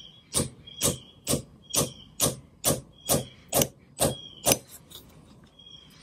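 Hammer striking the post of a no-sew metal button to drive it into the button back, on a cloth bag over brick. About ten steady blows, two a second, each with a short metallic ring; they stop after about four and a half seconds.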